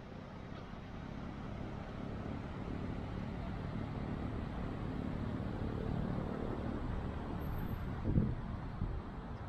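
Road traffic noise, a steady low rush that swells over several seconds, with a short thump about eight seconds in.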